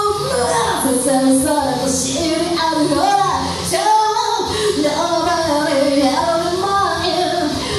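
A woman singing karaoke over a rock backing track. The low end of the backing drops out briefly about four seconds in.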